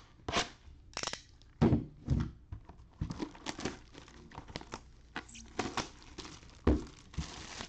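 Plastic shrink-wrap being torn and peeled off a cardboard trading-card box, crackling and crinkling in irregular bursts. Several dull thumps come from the box being handled, the loudest near the end, followed by a brief run of steady crinkling.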